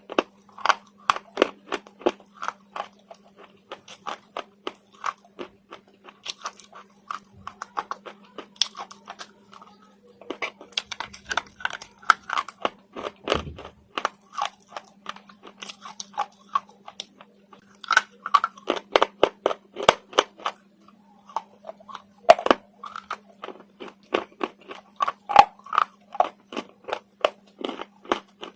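Slate being bitten and chewed: dense, rapid crunches one after another.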